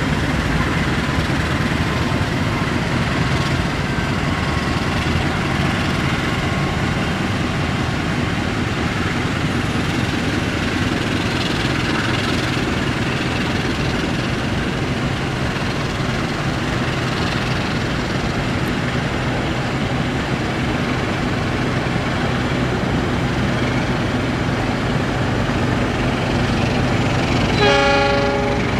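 Passenger train coaches rolling slowly past, a steady rumble of steel wheels on the rails. Near the end a train horn sounds once, for about a second.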